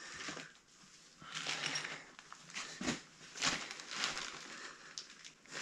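Plastic sheeting rustling and crinkling in several short bursts, with light clicks of tools and parts being handled.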